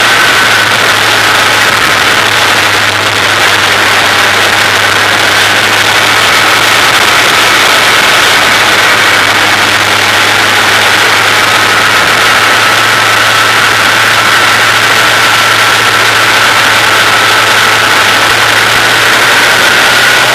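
Formula 2000 race car's engine running hard at speed, with heavy wind rush and road noise over it. The engine note drops slightly in the first couple of seconds, holds steady, then climbs again near the end.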